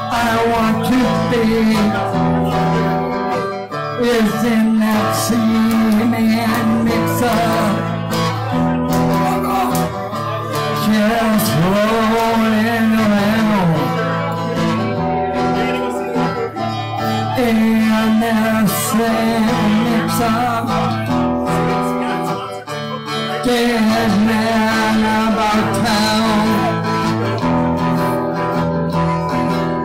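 Live acoustic guitar with a man singing over it.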